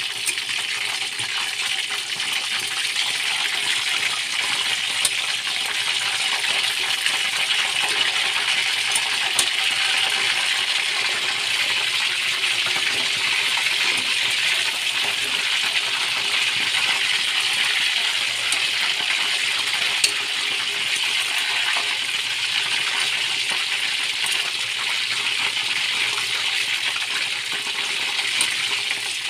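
Chicken pieces deep-frying in hot oil in a wok: a steady sizzle, with a few light sharp clicks.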